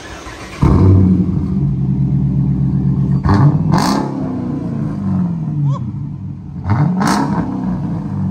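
Chrysler 300S's 5.7-litre Hemi V8 starting up through a mid-muffler and resonator delete with Carven R-Series mufflers. It catches suddenly and super loud, settles into a fast idle, and is revved twice, each rev rising and falling back.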